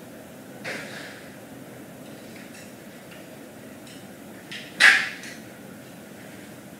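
Steady background hum broken by two short, sharp sounds: a light one about a second in and a much louder one near the end.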